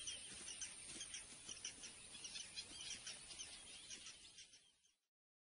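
Outdoor ambience of birds chirping, many short high chirps several a second, fading out about four and a half seconds in.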